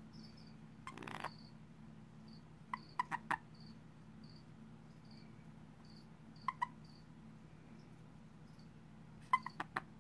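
Male black-scarred toad (Asian common toad) gripped behind the forelimbs giving its release call: short pulsed chirping trills in three brief bursts, about 3 s, 6.5 s and 9.5 s in. This is the call a male toad gives when clasped, signalling that he is a male.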